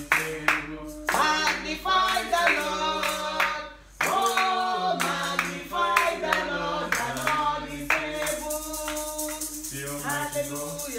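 A man sings a worship song in a low voice, with hand clapping on the beat. About eight seconds in, a shaker joins with a fast, steady rattle.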